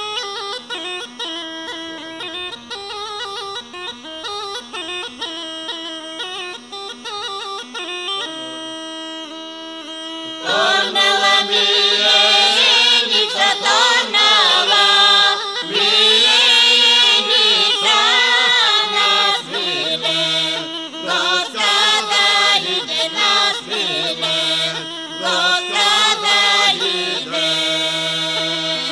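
Bulgarian Rhodope folk singing by a mixed group of men and women, with long held drone-like notes. The group's voices come in much louder about ten seconds in.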